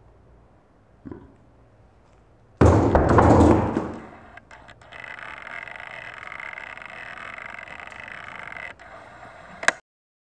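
A sudden loud crash on a tabletop, with about a second of clatter dying away, as the OxiClean tub is knocked off and an apple lands among the pepper pieces. A steady hiss follows, ending in a sharp click and an abrupt cut.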